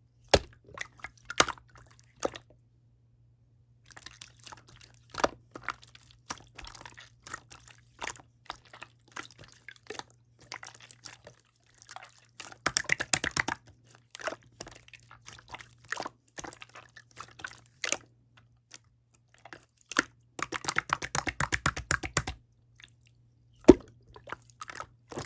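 Mint-coloured clear slime being squished and poked by hand, giving sticky clicks and small popping sounds, with two stretches of rapid crackly popping, in the middle and near the end.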